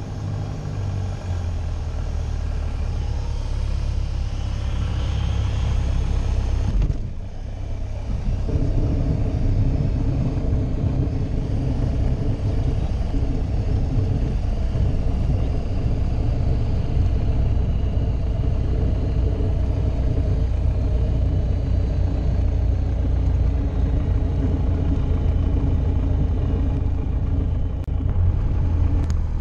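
Piper PA-28 Warrior's four-cylinder Lycoming engine and propeller droning steadily, heard from inside the cockpit, with an airflow hiss over it for the first several seconds. About seven seconds in the sound briefly drops, then a louder, steady engine drone carries on through the landing roll and taxi.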